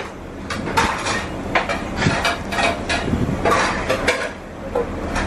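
Kitchen clatter of dishes and utensils against a stainless-steel counter: a string of sharp clinks and knocks, irregular, over a steady low hum.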